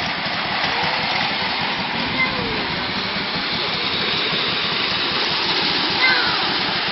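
Hornby tinplate O gauge clockwork locomotive and coaches running on tinplate track, a steady whirring rattle.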